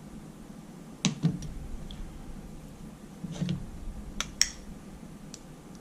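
Small metal clicks and taps of hand tools on a small outboard carburetor as the float pin is worked out: a few sharp clicks about a second in, more around three and a half to four and a half seconds in, and a last one near the end.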